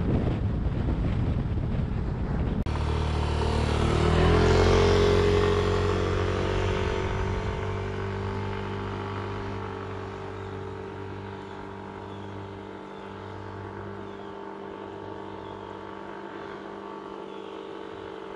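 Yamaha Zuma 125 scooter's single-cylinder engine, first heard with wind buffeting from a camera riding on the scooter. After a cut about two and a half seconds in, the scooter passes close by, loudest around four to five seconds in, and then fades steadily as it rides off into the distance.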